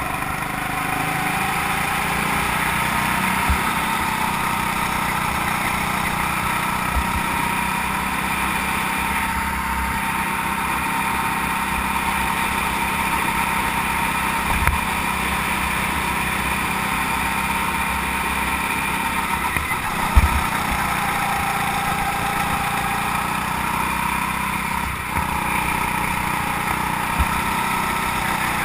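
Go-kart engine running on a lap, its pitch rising and falling with the throttle. A few short thumps, the loudest about twenty seconds in.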